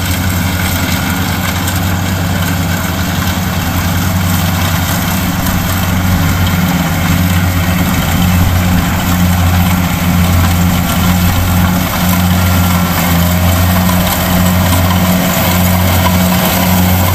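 Kubota DC-70 combine harvester's diesel engine running steadily while harvesting rice, a little louder from about six seconds in.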